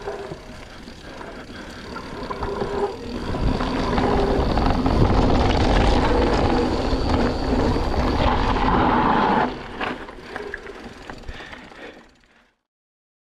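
Mountain bike rolling fast down a dirt forest trail: tyre and trail noise with wind buffeting the microphone. It grows loud for about six seconds in the middle, then drops away and cuts to silence near the end.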